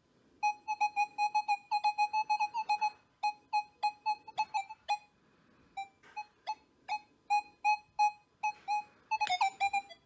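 Nokta Makro Legend metal detector in Field Mode with full tones, sounding a run of short mid-pitched beeps as a broken ring is passed over its coil. The beeps come in quick succession for about three seconds, then more spaced out, with some higher tones near the end. The response changes as the ring is turned, because the ring's signal depends on its orientation over the coil.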